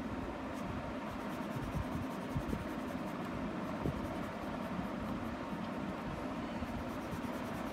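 Colour pencil shading on paper: faint, steady scratching of light strokes.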